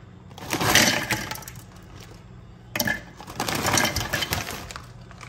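Crunchy Flaming Hot Cheetos poured from a crinkly snack bag into a plastic food chopper bowl, the pieces clattering and rattling against the plastic. Two pours, one about a second in and another about three seconds in.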